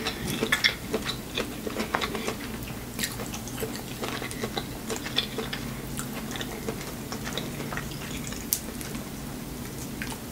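Chewing and biting corn on the cob, with many small wet clicks and crunches scattered throughout.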